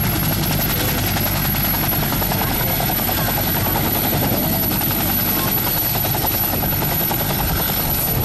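Westland Whirlwind helicopter lifting off into a low hover, its turbine and main rotor at high power. It makes a fast, steady blade chop with a thin high whine over it.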